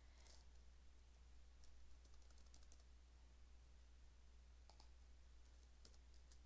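Faint, scattered keystrokes on a computer keyboard as a web address is typed, over a steady low hum.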